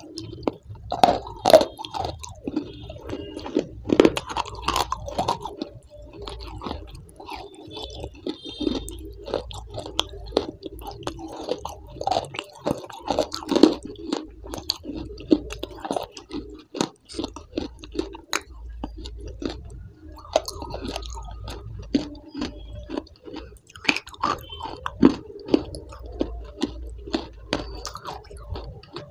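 Close-miked chewing with frequent irregular crisp crunches and wet mouth noises.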